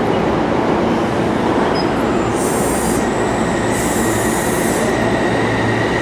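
Electric commuter train running along the station platform, with a steady rumble of wheels on rail and a thin high whine that comes in about two seconds in. Two short bursts of high hiss sound partway through.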